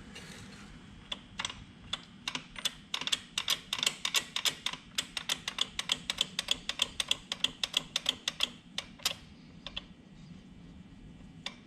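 Quick run of sharp clicks, several a second, from hand-tool work fastening the new cap on the motorcycle's brake fluid reservoir. The clicks start about a second in, stop around nine seconds, and a few more come near the end.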